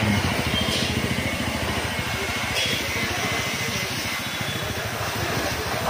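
Street traffic: vehicle engines running steadily with a low rumble.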